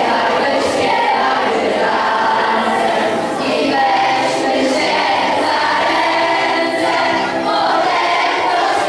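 Children singing together: young voices led by a girl singing into a hand-held microphone, held notes without a break.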